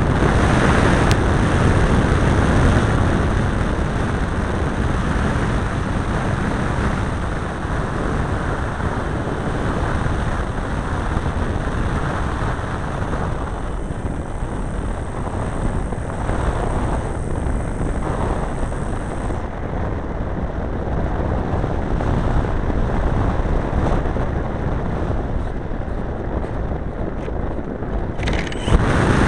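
Large RC model airplane heard from its own onboard camera: the engine running at low throttle under a steady rumble of air on the microphone while the plane sits or rolls on the dirt strip. Near the end the sound jumps suddenly louder as the engine opens up for the takeoff run.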